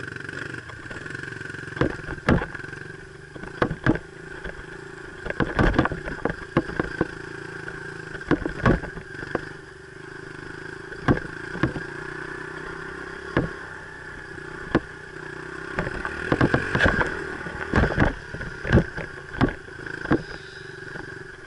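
Dirt bike engine running at steady revs on a trail ride, with frequent sharp knocks and clatter.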